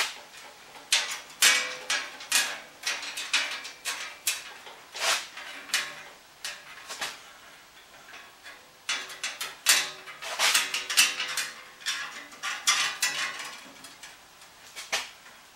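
Metallic clinks and rattles of a bandsaw blade being handled and fitted into its blade guides: a run of sharp clinks that ring briefly, in two busy stretches with a short lull between.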